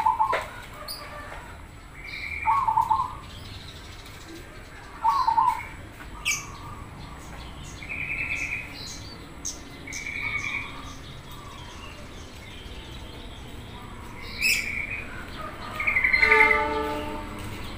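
Zebra dove (perkutut) cooing in short separate phrases every few seconds, with other small birds chirping in high, brief notes between them.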